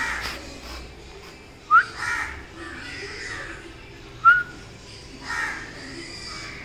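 Crows cawing at intervals. Short, sharp rising chirps come about every two and a half seconds and are the loudest sounds.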